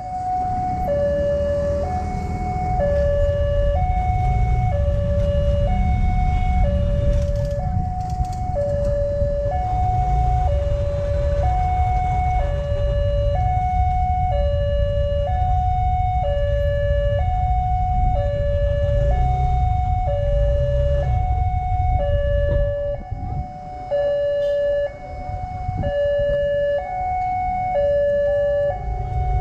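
Railway level-crossing warning siren sounding a two-tone high-low alarm, each tone held about a second, warning that a train is approaching as the barriers come down. Road traffic and motorcycles rumble low beneath it.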